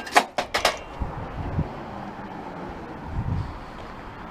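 A few sharp metal clinks and clanks in the first second, from loose parts being handled, then a steady background hum with one soft low thump about three seconds in.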